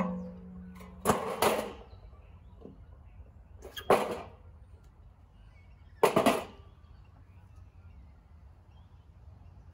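Wooden timber boards knocking and clattering against each other as they are shifted on a stack, four short clatters about two seconds apart, the second one a double knock.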